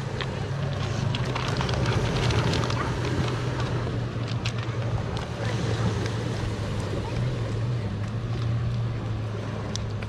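A dog eating dry kibble from a hand, its crunching bites heard as scattered short clicks, thickest in the first few seconds. Under it a steady low hum and the wash of calm sea on pebbles.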